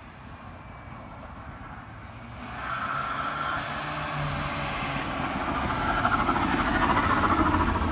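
BMW N20 turbocharged four-cylinder engine, quiet at first, then louder from a couple of seconds in and building steadily toward the end as it is revved or driven harder.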